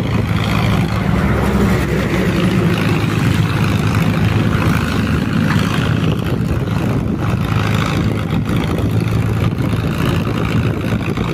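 Mahindra Arjun 605 tractor's four-cylinder diesel engine running steadily under heavy load, pulling a fully loaded sugarcane trolley up a slope in first gear.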